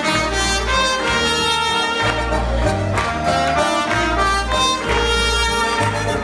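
Small jazz band playing live: two trumpets and a saxophone holding melody notes over keyboard accompaniment, with a low bass line that changes note about once a second.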